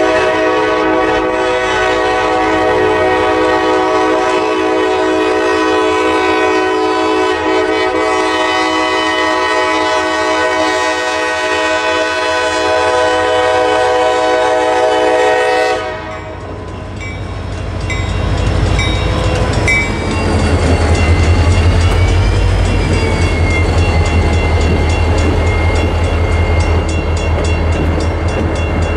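EMD SD40-2 diesel locomotive sounding its air horn in one long held chord that cuts off about sixteen seconds in. Then the locomotive's two-stroke V16 diesel rumbles past close by, louder from about two seconds later, while the crossing's mechanical bell rings.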